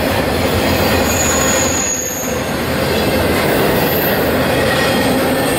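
Intermodal freight train of truck trailers on flatcars rolling past: a loud, steady rush of wheel and rail noise.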